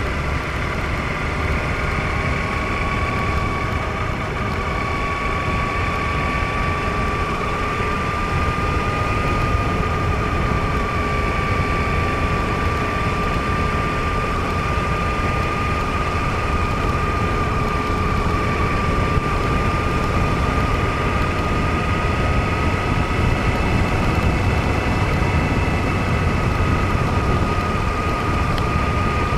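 A vehicle running steadily along a road: heavy wind rumble on the camera's microphone, over a steady whine that slowly rises in pitch.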